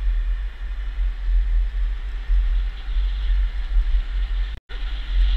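Wind buffeting the microphone as an electric scooter rider moves at speed, a heavy low rumble with a hiss over it. The sound cuts out completely for a moment about four and a half seconds in.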